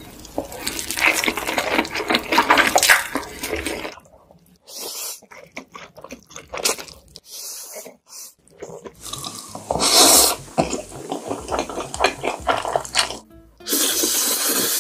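Instant noodles slurped and chewed close to the microphone: wet slurping and smacking in quick clusters, with a loud slurp about ten seconds in and another long one near the end.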